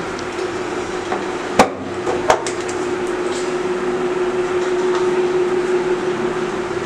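Two sharp knocks, just under a second apart, over a steady mechanical hum.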